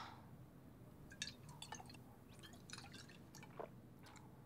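Near silence: room tone with a scatter of faint, wet little clicks from the mouth and lips of the seated speaker, after the tail of an outbreath at the start.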